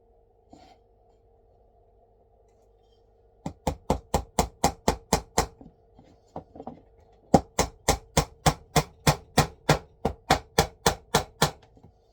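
Small nails being hammered into a wooden DN4 beehive frame: quick, light hammer taps at about four to five a second, in a short run a few seconds in and a longer run in the second half.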